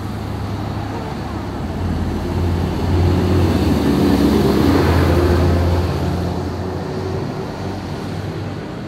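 Tractor driving past on a wet road: its diesel engine drone grows louder, is loudest about halfway through with tyre hiss on the wet tarmac, then fades away.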